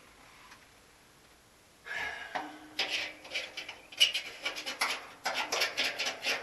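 Quiet for about two seconds, then quick repeated scraping strokes, several a second and growing louder: a hand tool scraping at the fuel tank around the cut-out brace.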